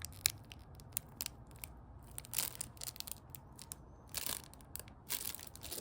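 Small items from a survival kit being handled by hand: scattered light clicks and taps, with a few brief crinkles of packaging.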